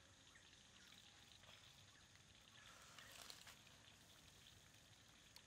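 Faint sizzling and crackling of mussels cooking in their shells on a wire grate over charcoal, with scattered small ticks and a brief louder sizzle about halfway through.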